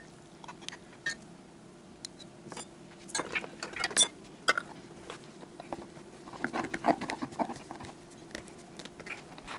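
Light clinks and taps of a metal teaspoon and a metal screw lid against a glass jar, then cloth rubbing as the hot lid is screwed onto the sterilized jar through a towel.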